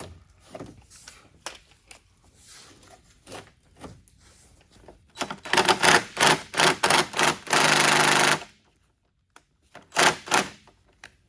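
Cordless power driver run in short trigger bursts and then one longer run of about a second, working at a stubborn underbody fastener, with two more short bursts near the end. Soft clicks and handling come before it.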